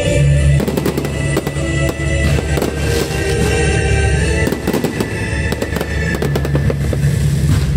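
Fireworks going off in quick succession, many sharp bangs and crackles, over loud show music with a heavy bass.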